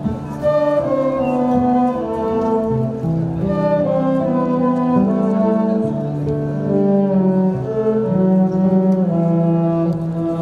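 Instrumental music from a live orchestra: a slow melody of held notes moving step by step over sustained chords.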